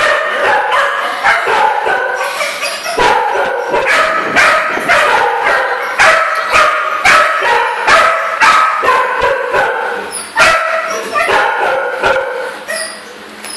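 Young dog yelping and whining over and over, about two short cries a second without a break.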